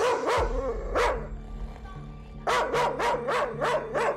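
A medium-sized dog barking hard and close up: three barks, then after a pause a quick run of about seven barks, roughly four a second. This is its alarm barking at strangers. Background music with a low steady drone plays underneath.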